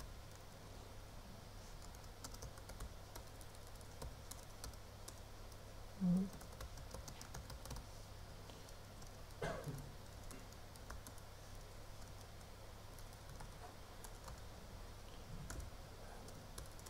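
Computer keyboard typing: faint, irregular runs of key clicks as code is entered. Two short low sounds break in, about six and nine and a half seconds in.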